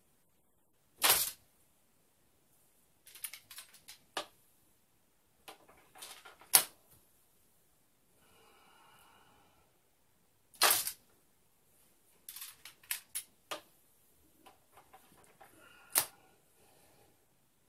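A replica katana is fast-drawn from its scabbard and sheathed again, twice. Each time there is one sharp stroke as the blade is drawn, then a run of small clicks and scrapes as the blade is returned to the scabbard, then a final sharp click as the guard seats against the scabbard mouth.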